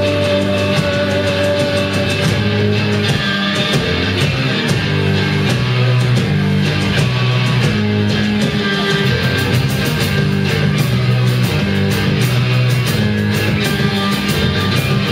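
Live heavy rock band playing: distorted electric guitars holding chords over drums, with cymbal hits coming faster and denser in the second half.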